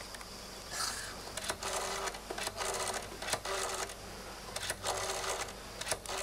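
Rotary telephone dial being turned and whirring back with quick clicks, several times in a row as a number is dialled.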